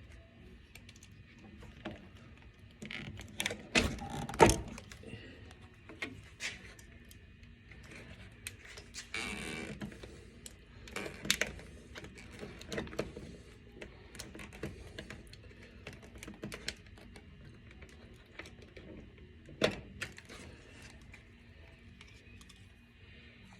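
Scattered knocks and taps of hands pressing a rubber door seal onto a truck's door frame, loudest about four seconds in, with a brief rustle near the middle.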